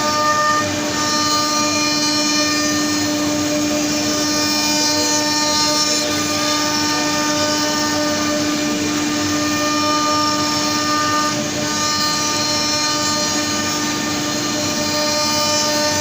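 A 4-axis CNC wood router running, its spindle giving a steady whine over the noise of the machine at work. Some of the higher tones drop out briefly about a second in and again around eleven seconds.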